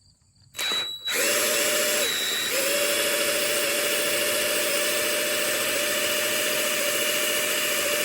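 DeWalt cordless drill spinning a drill-powered water pump's rubber-vane impeller, with no water coming through. After a short blip it starts about a second in and runs steadily, with a brief stutter about two seconds in.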